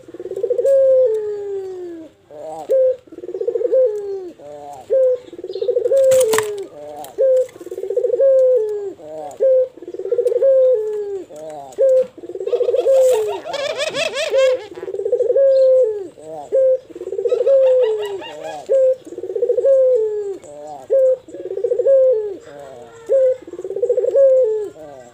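Ringneck (Barbary) dove cooing over and over, each coo a short note followed by a longer falling one, about one every second and a half. Twice around the middle a harsher, rattling sound overlaps the coos.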